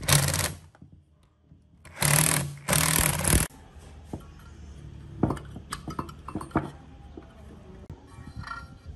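Cordless power driver running in short bursts as it drives bolts into a generator frame: one burst stops about half a second in, and two more follow between two and three and a half seconds. Then come light clicks and knocks of small metal parts being fitted by hand.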